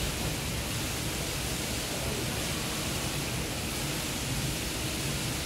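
Steady, even rushing hiss of a large shopping-mall atrium's background noise, with no distinct events.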